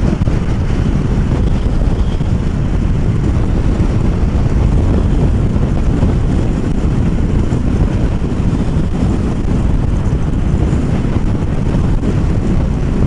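Steady wind rush on the camera's microphone over the engine and tyre noise of a SYM GTS 250i scooter cruising at highway speed.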